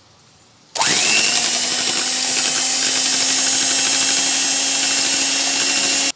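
Electric hand mixer switched on about a second in, its motor spinning up quickly to a steady high whir as its two wire beaters whisk raw eggs, then switched off just at the end.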